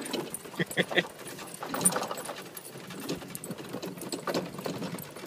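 Quick, rhythmic thuds and rustling of someone running across grass with the recording phone in hand, the phone jostling with each stride; the strokes are sharpest and most regular in the first second, then turn more even and blurred.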